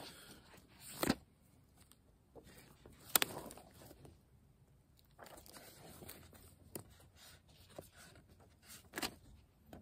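Paper book being handled, opened and leafed through: scattered rustles of pages with a few sharp taps.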